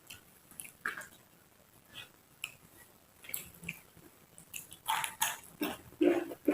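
Close-up chewing of raw vegetables: wet mouth clicks and crunches, sparse at first and then a quicker, louder run of crunching bites about five seconds in.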